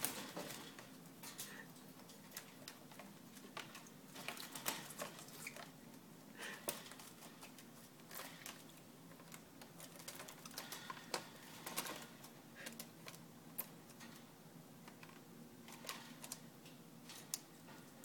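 A lorikeet and a budgerigar bathing in a small plastic tub of water: light irregular splashes, patter of flicked droplets and sharp ticks as they flap their wings in the water.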